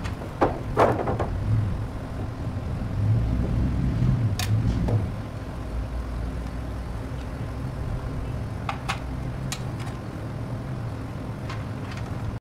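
Scattered light knocks and clicks from hand work on a timber deck-roof frame and an aluminium stepladder, a cluster of them near the start, over a low rumble that drops about five seconds in.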